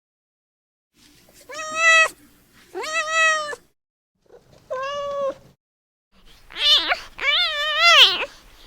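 A kitten meowing: about five high-pitched meows, each well under a second, spaced by short silences, the kitten calling for its mother.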